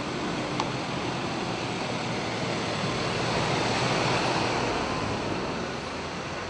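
Steady outdoor din of a milling crowd and police pickup trucks, a hiss with no distinct voices that swells a little midway, with one short click about half a second in.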